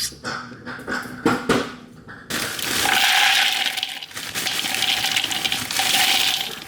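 A few light clicks and knocks, then, about two seconds in, a kitchen tap starts running water steadily into a container.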